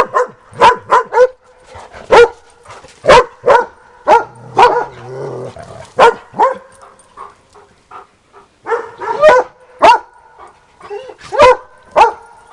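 Dog barking over and over in short, sharp barks, often two to four in quick succession, with a lull about seven to eight seconds in.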